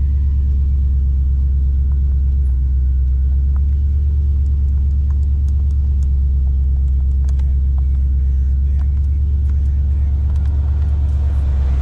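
2015 Ford Mustang's 5.0 L V8 idling steadily, heard from inside the cabin, with faint clicks of dashboard buttons being pressed.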